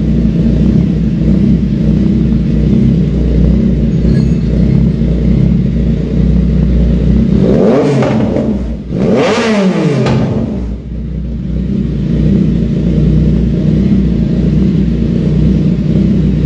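Yamaha MT-09's three-cylinder engine idling loudly through a full aftermarket exhaust, blipped twice about halfway through, the revs rising and falling back each time, the second blip longer and higher, then settling back to idle.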